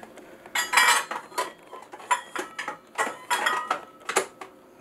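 Light clinks and knocks of metal kitchenware being handled, about eight or ten separate strikes, several with a brief ringing tone.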